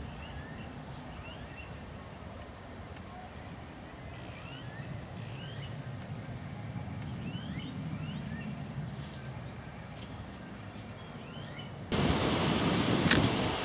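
Distant jet engine rumble from a climbing Boeing 737 airliner, swelling and fading, with small birds chirping in short rising calls. Near the end a much louder rushing noise cuts in suddenly.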